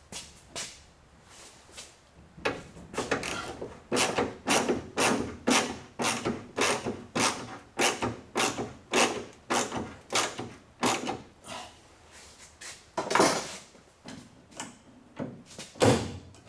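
A hand tool or mechanism is worked back and forth in a steady rhythm: short rasping mechanical strokes about twice a second, with two louder strokes near the end.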